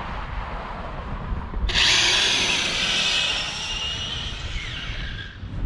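Electric RC drag car making a pass: a sudden loud high-pitched motor whine starts about two seconds in, lasts about three and a half seconds, then drops away. Low wind rumble on the microphone runs underneath.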